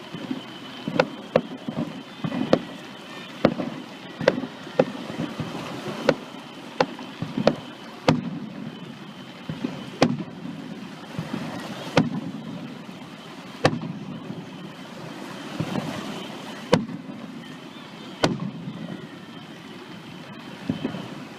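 Fireworks display: a steady, irregular run of sharp bangs from bursting shells, roughly one or two a second, some echoing briefly, over a continuous background rumble.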